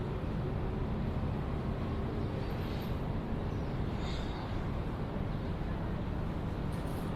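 Railway station ambience: a steady low rumble, with a few faint, brief sounds about three and four seconds in.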